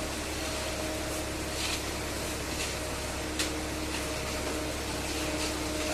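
Construction machinery running steadily with a droning hum, with a single sharp knock about three and a half seconds in.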